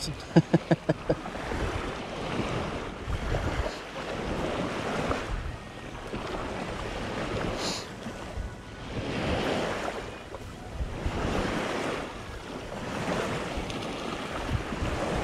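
Shallow water sloshing and lapping, swelling and fading about every two seconds, with wind buffeting the microphone. A quick run of clicks comes in the first second.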